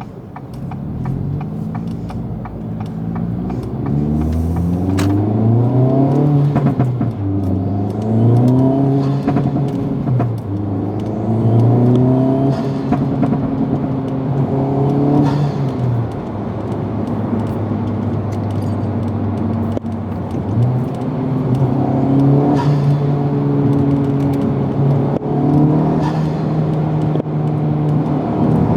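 Turbocharged 2.0-litre four-cylinder of a Honda Civic Type R / Acura Integra Type S, fitted with an aftermarket Boomba recirculating bypass valve, revving up and dropping back several times, then holding a steady speed for a few seconds before climbing again and holding near the end.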